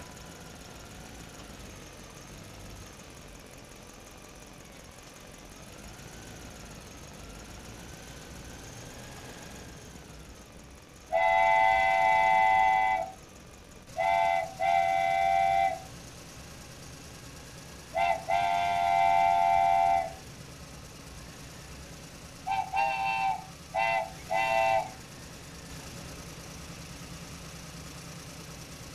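A loud multi-tone horn sounds in a series of blasts over a steady low engine-like rumble: a long blast, a short one, another long blast, then several quick short toots near the end.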